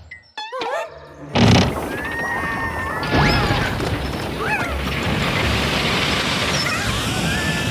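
Cartoon sound effects: a short wobbly squeak, then a sudden loud crash about one and a half seconds in, followed by a steady noisy rush with whistling glides over it.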